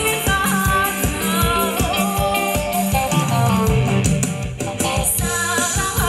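A live dance band plays upbeat music, with a steady drum beat under a melody line.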